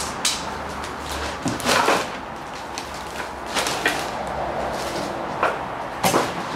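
Knocks and clunks of a timber board being laid on a Wadkin circular dimension saw's table and the saw's guard and fence being handled, the loudest a couple of thumps about two seconds in. A steady workshop hum runs underneath.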